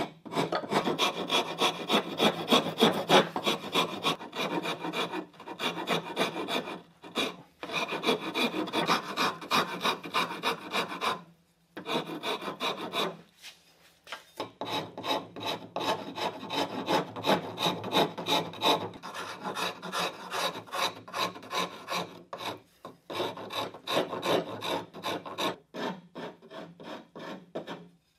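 Hand rasp cutting walnut on a gun stock in quick back-and-forth strokes, several a second, with a pause of about three seconds near the middle.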